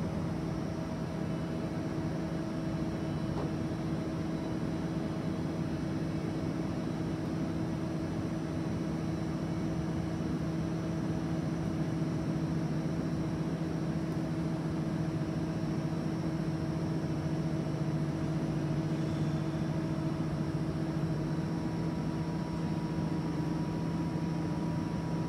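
Steady electric machine hum from a powered-up TOS Hulín SKQ12 NC vertical turret lathe, made of several constant tones over an even rumble, with no change in pitch or level.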